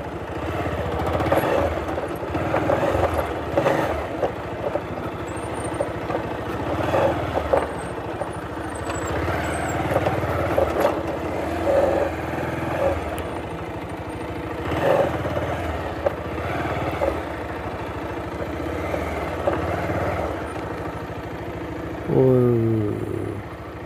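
Motorcycle engine running at low speed over a rough, rocky dirt track, with irregular knocks from the bumps. Near the end the engine note falls as the revs drop.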